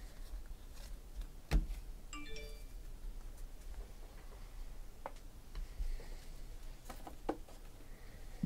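Trading cards being handled and set down on stacks on a table: scattered light taps and clicks, the sharpest about one and a half seconds in. A brief run of short tones sounds just after two seconds.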